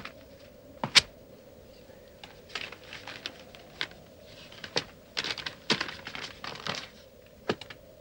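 Stiff paper crackling and rustling as a letter is opened and unfolded by hand, with a sharp crack about a second in and bursts of crinkling later on.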